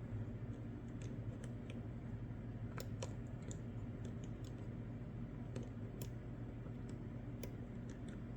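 Small, irregular clicks of a disc detainer pick turning and tensioning the discs inside a Swedish Lås disc detainer padlock, over a steady low hum.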